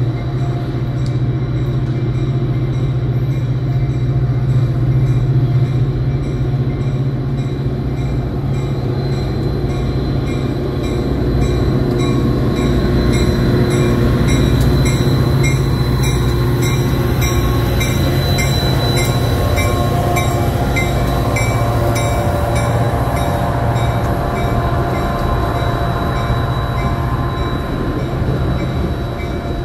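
WeGo Star diesel commuter train with bilevel passenger cars rolling past, a loud, steady low drone of engine and wheels on rail. Through the middle stretch there is a light, regular clicking.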